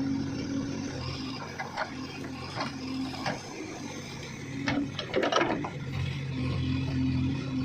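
Diesel engine of heavy earth-moving machinery running, its note dipping and then building up again after about six seconds. Sharp metallic clanks come at intervals, with a quick cluster about five seconds in.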